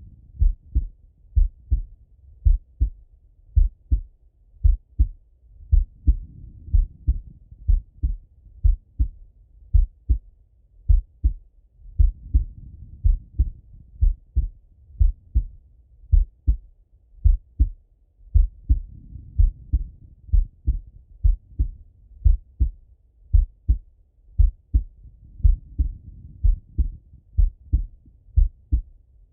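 A man's heartbeat heard through a Littmann stethoscope: steady lub-dub pairs at a slow, relaxed rate of about one beat a second. His breathing comes through underneath as a soft whoosh that swells every six or seven seconds.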